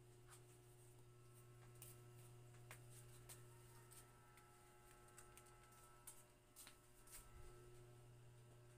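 Near silence: room tone with a steady low hum and a few faint scattered clicks.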